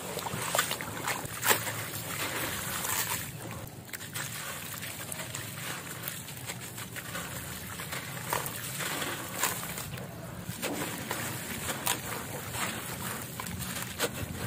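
Hands crumbling wet, dusty concrete chunks and gravel in a plastic basin of water: a steady gritty crackle with many small sharp clicks, and water sloshing and splashing as handfuls are stirred, squeezed and dropped back in.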